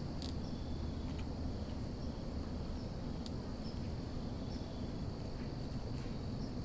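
Insects trilling in one steady, high, even tone over a low, constant rumble, with a few faint clicks.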